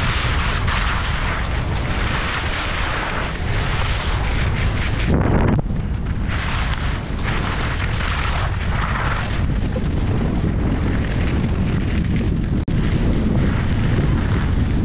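Wind buffeting the camera's microphone while skiing fast downhill, with the skis hissing and scraping over the snow in swells as they turn.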